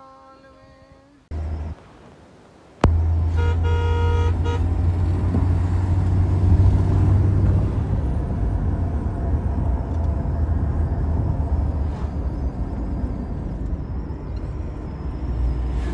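A car on the move, heard from inside: a loud, steady low rumble that starts suddenly about three seconds in. A car horn toots for about a second just after it starts.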